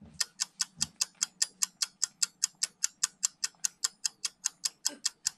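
Clock-style ticking of a countdown timer, a fast steady tick about six times a second, counting off a seven-second time limit.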